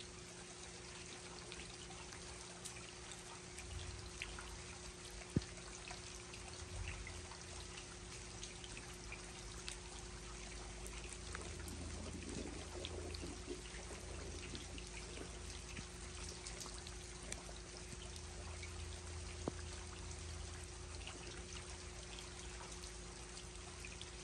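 Steady rain falling, a constant hiss with scattered drip ticks, one sharper tick about five seconds in, over a faint steady hum.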